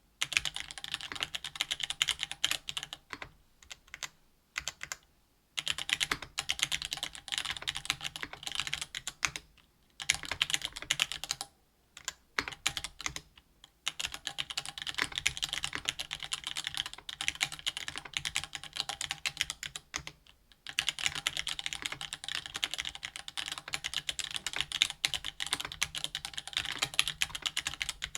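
Typing on a RAMA Thermal mechanical keyboard with stock Gateron Black Ink linear switches, GMK keycaps and an aluminum plate: a fast, continuous run of keystroke clacks broken by a few short pauses.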